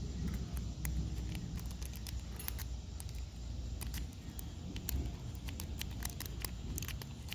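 Homemade stainless-steel lock picks and tension wrench working inside a padlock: irregular small metallic clicks and scrapes, over a low rumble.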